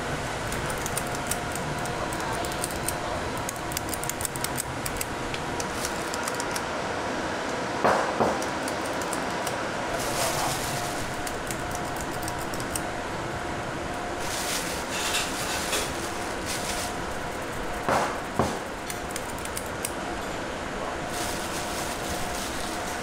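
Steady hum of kitchen machinery and ventilation, with light clattering and two pairs of sharp knocks, about eight seconds in and again near eighteen seconds.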